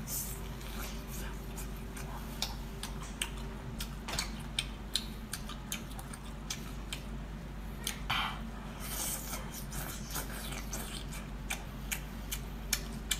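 Close-up chewing and wet mouth clicks and smacks of someone eating spicy octopus, irregular sharp clicks with a longer squelching sound about eight seconds in, over a steady low hum.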